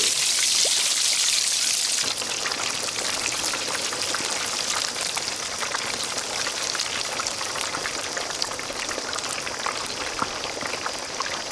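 Whole chicken deep-frying in hot oil: a dense sizzle full of fine crackles and pops, strongest in the first two seconds.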